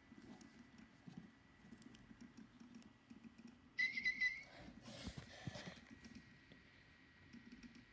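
Light clicking and tapping of plastic toy birds being handled, with one brief electronic chirp from a Little Live Pets Tweet Talking toy bird about four seconds in.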